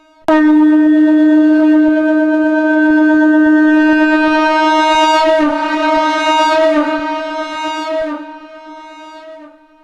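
Shankh (conch shell) blown in one long, loud held note pitched around D#, starting abruptly, wavering in the middle, then dropping to a softer tone that fades out near the end.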